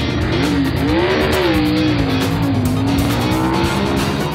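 Cartoon engine sound effect for a monster truck, revving with its pitch rising and falling, over background music.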